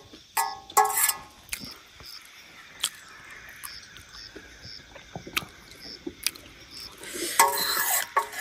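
A metal spoon clinks and scrapes against a steel pot in a burst about half a second in and again near the end, with softer scattered taps between. A faint chirp repeats about twice a second in the quieter middle stretch.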